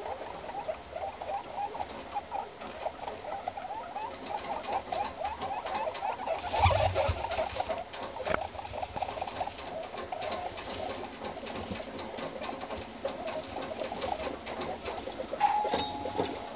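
Guinea pigs, a mother with her young pups, making a dense run of many short soft calls while they scurry and rustle through hay. A louder bump about seven seconds in, and a short held squeak near the end.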